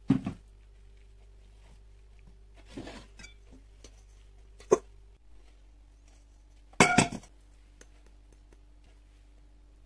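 Kitchen handling sounds: dishes and utensils knocking and clinking four times, sharpest a little under 5 seconds in and loudest as a quick double clatter about 7 seconds in, over a faint steady hum.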